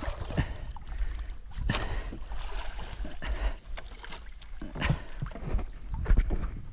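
Wooden club striking a hooked marlin in the water beside a small outrigger boat: three sharp knocks with splashing, over a steady low rumble of wind and water.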